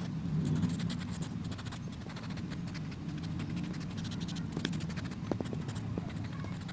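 A pencil's rubber eraser rubbed back and forth on notebook paper in rapid scratchy strokes, erasing a pencil sketch, over a steady low hum.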